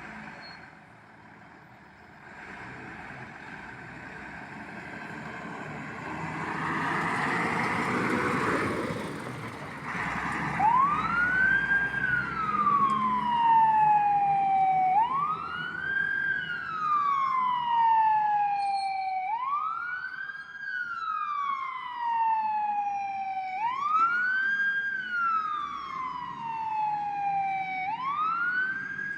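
Fire engine's siren wailing, starting about ten seconds in: each cycle rises quickly and falls slowly over about four seconds, five cycles in all. Before it, the truck's engine runs and grows louder.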